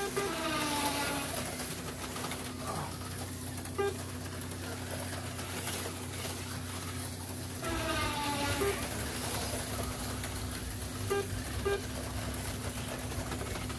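HO-scale slot cars with small electric can motors (Mega G Plus and Super G Plus chassis) whining around the track during a race, the pitch falling now and then, over a steady electrical hum, with a few short blips.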